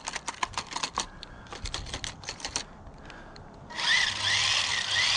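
A quick run of light clicks, then, near the end, the RC truck's small electric motor and gears running with a high whine that rises and falls about twice a second as it drives off under throttle.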